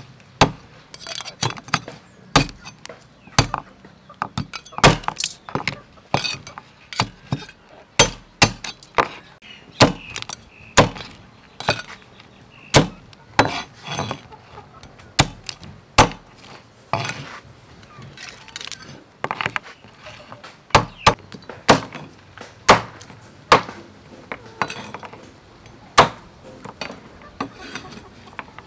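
Large kitchen knife chopping raw mud crabs into pieces on a wooden cutting board: an irregular series of sharp chops, about one strong stroke a second, with lighter knocks of the blade between.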